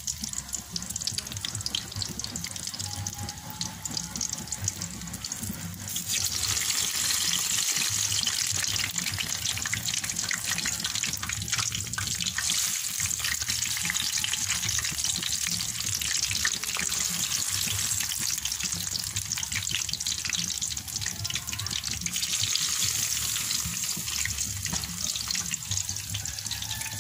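Banana rolls in lumpia wrappers (turon) deep-frying in a pan of hot oil: a dense, steady crackle and sizzle that gets louder about six seconds in.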